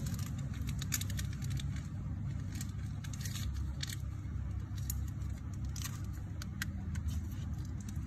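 Scattered faint clicks and ticks of metal Zippo Armor lighters being handled, a few in quick succession, over a steady low rumble of background traffic.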